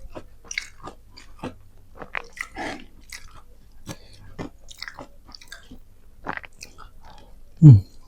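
Close-up chewing and biting of crispy fried chicken skin, with irregular crunching and mouth clicks. Near the end there is one short, loud, low sound that falls in pitch.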